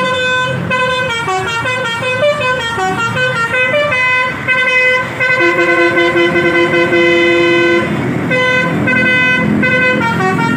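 Telolet 'basuri' musical bus horn playing a melody, its notes stepping up and down with one long lower note held in the middle, over the bus's engine running.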